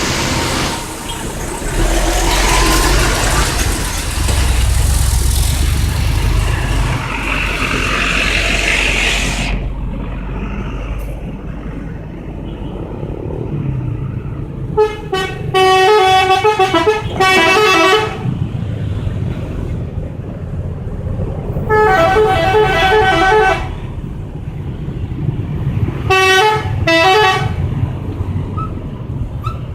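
Bus telolet horn, a multi-tone musical air horn, playing short jingles of quickly changing notes three times in the second half. Before that, a loud steady rushing noise stops suddenly about nine seconds in, over a low engine rumble.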